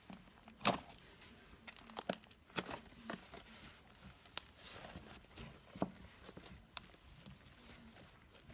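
Fluffy slime, made of glue and shaving cream, being squished and stretched by hand, giving irregular soft crackles and sharp little pops as air pockets burst.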